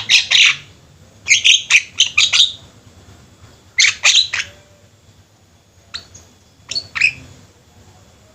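Javan mynas calling in quick runs of short, loud calls, in four groups a second or two apart, the last group shorter and fainter.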